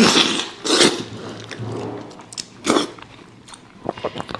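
Close-miked eating sounds from a sheep's head in spicy sauce: biting and chewing meat off the jawbone, then sucking on a bone, with loud wet bursts at the start, about a second in and near three seconds, and small clicks near the end.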